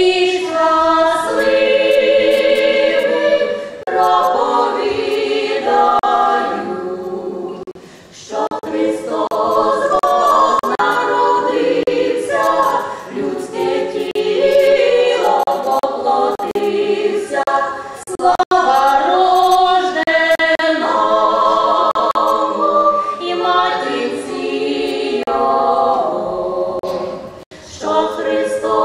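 Five-woman folk vocal ensemble singing a Ukrainian carol (koliadka) a cappella in several-part harmony, with brief breaks between phrases about 8 and 18 seconds in and near the end.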